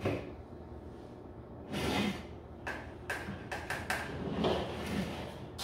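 A wire mesh strainer and a glass mixing bowl being handled on a tabletop: a run of short scrapes, knocks and light clatters, the largest about two seconds in and a cluster of clicks between about three and five seconds. This is the setup for straining corn mash before a gravity reading.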